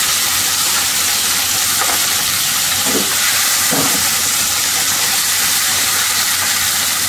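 Chopped capsicum, tomato and carrot sizzling in hot oil in a kadai: a steady, loud hiss of frying, with a spatula stirring through the vegetables.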